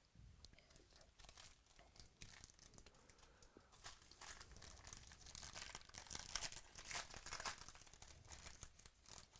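Faint tearing and crinkling of a trading card pack wrapper being ripped open and handled, growing busier about halfway through.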